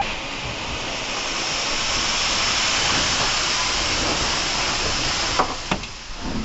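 Steam locomotive 46233 Duchess of Sutherland, an LMS Coronation-class Pacific, blowing steam from its open cylinder drain cocks as it gets under way: a loud steady hiss that builds over the first two seconds and cuts off about five and a half seconds in, followed by a couple of sharp knocks.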